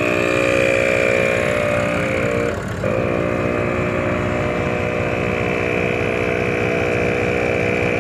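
ARB twin 12-volt on-board air compressor running steadily with an even mechanical whine, pumping air through the hoses. It drops out for a moment a little under three seconds in, then carries on.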